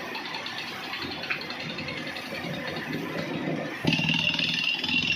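Engine-driven air drilling rig and its compressor running steadily. Just under four seconds in, the sound jumps abruptly louder, with a steady high whine over the engine.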